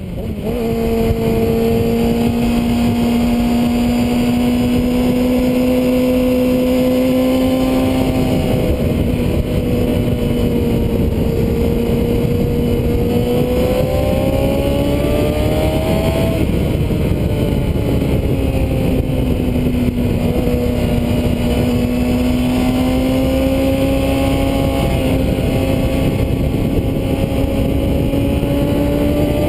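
Kawasaki Ninja 636 sportbike's inline-four engine running under way at steady revs, its pitch rising and falling with the throttle through the curves and dropping sharply about halfway through, over a steady rush of wind noise.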